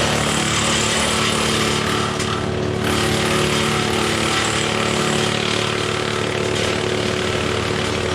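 Woodmaxx WM8 PTO wood chipper running off a John Deere 4066R tractor and chewing limbs into chips. A steady engine drone sits under a loud grinding hiss that eases briefly a couple of seconds in.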